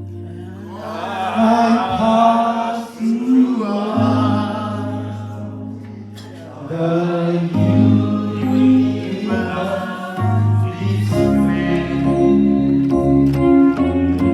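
Gospel worship music: voices singing over sustained bass and keyboard chords.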